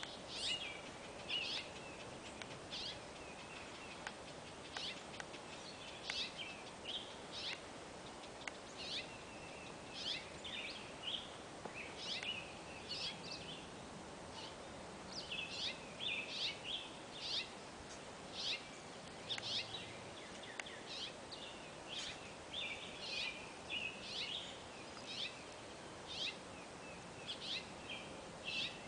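Songbirds chirping: short, high calls repeated irregularly throughout, over a steady outdoor background hiss.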